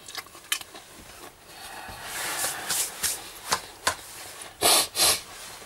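Workshop handling noises: a few light clicks, a stretch of hissy rustling, then two short, louder noisy bursts near the end.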